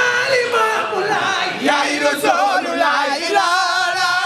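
A group of women chanting a Sufi zikr together, one lead voice sung into a microphone, in long drawn-out melodic lines that waver near the end.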